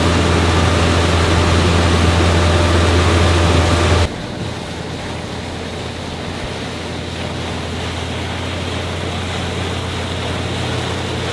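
Boat engine running with a steady low drone, with wind and water rushing around it; about four seconds in it cuts off abruptly to a quieter steady rush of wind and water.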